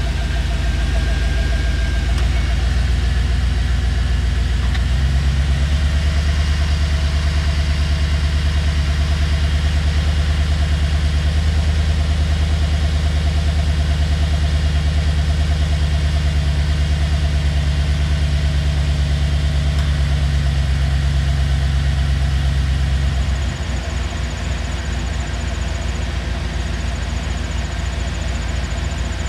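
Chevrolet Silverado pickup's engine idling steadily, a deep even hum; about three-quarters of the way through the idle settles a little lower and quieter.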